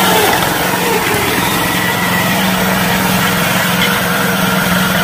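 Small engine of a homemade tracked tank running steadily as the tank drives along, with an even, unchanging hum.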